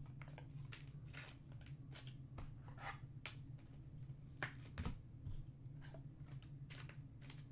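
Trading cards being handled and slid into plastic penny sleeves: a string of short rustles and slides, over a steady low hum.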